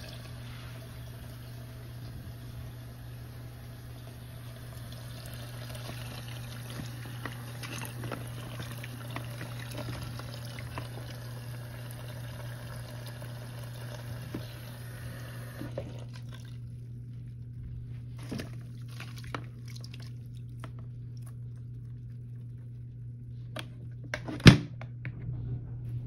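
Tap water running through a hose into a mini portable washing machine's tub of soapy clothes, a steady rush that cuts off suddenly about two-thirds of the way through. A few light knocks follow, then a sharp plastic clack near the end as the washer's lid is shut.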